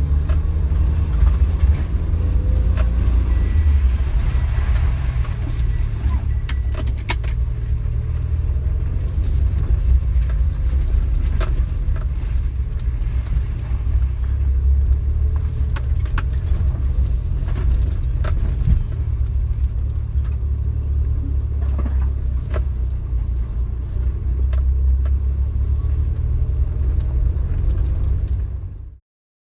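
Suzuki Jimny driving: a steady low engine and road rumble with scattered clicks and rattles. It cuts off suddenly near the end.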